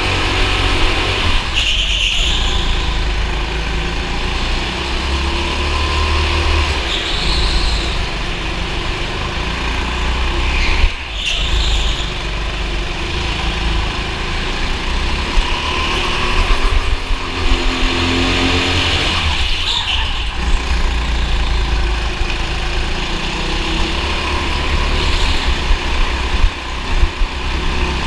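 Racing go-kart engine heard from an onboard camera, its revs rising and falling every few seconds over a heavy low rumble.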